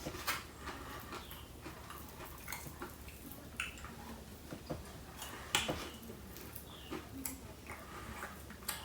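Close-miked eating: irregular wet chewing clicks and mouth smacks as chicken and shrimp are eaten, with one louder smack about halfway through.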